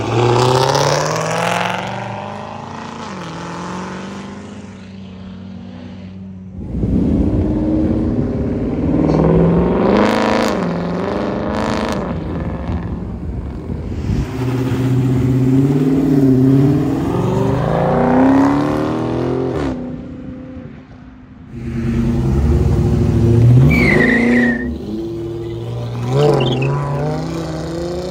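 Mopar cars accelerating hard, the engine note climbing and dropping back at each gear change, several times over. The sound breaks off abruptly twice as one car gives way to another.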